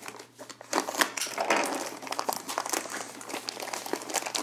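Clear plastic sleeve around a rolled canvas crinkling as it is handled and opened, with irregular crackles.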